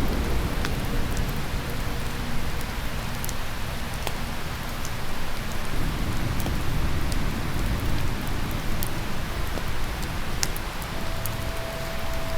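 Mountain river rushing steadily, with a few sharp clicks scattered through it. A steady tone comes in near the end.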